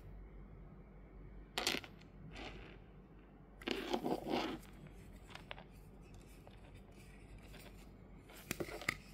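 Hands handling a metal Funko Soda collectible tin can, with fingers rubbing and scraping on it: a short scrape about a second and a half in, a longer one around four seconds, and a few small clicks near the end.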